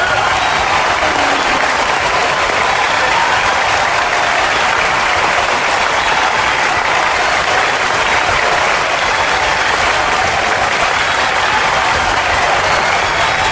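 Large crowd applauding: a steady, dense, unbroken clapping of many hands.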